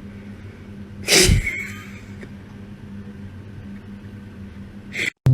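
A single short, sharp sneeze-like burst about a second in, over a steady low hum.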